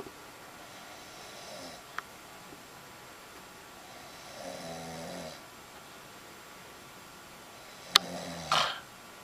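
A woman snoring in deep sleep: one rattling snore about four seconds in that lasts about a second, and another near the end. A sharp click, the loudest sound here, comes just as the second snore starts.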